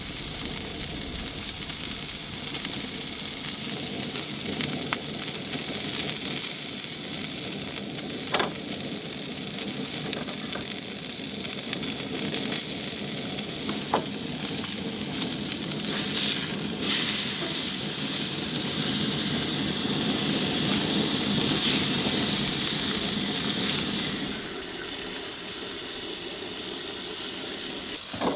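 Bacon strips and a burger patty sizzling in a cast iron skillet on a camp stove, with a few sharp clicks along the way. The sizzling drops lower about four seconds before the end.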